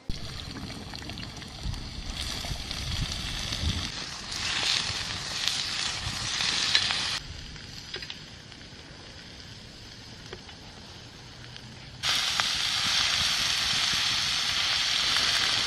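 Food sizzling as it fries in a hot pan: a dense, steady hiss that drops away sharply about seven seconds in and comes back just as loud, all at once, about twelve seconds in.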